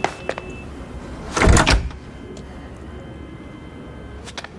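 Mirrored wooden wardrobe door being moved, with one loud double knock about a second and a half in and a few faint clicks around it.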